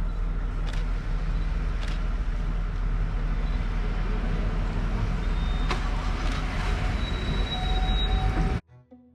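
Low, steady rumble of idling safari vehicles' engines, with a few short knocks and a faint thin high tone in the second half. It cuts off abruptly near the end.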